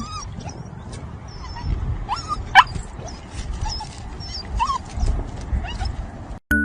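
Puppy whimpering in short, high squeaks, about half a dozen times, with a louder squeal about two and a half seconds in, over low rumbling noise.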